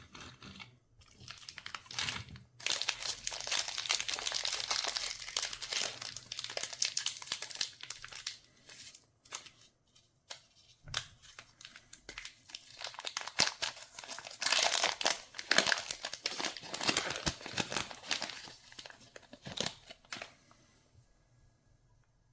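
Candy packaging being unwrapped by hand: wrappers crinkling and tearing in two long busy stretches, with sharp crackles in between.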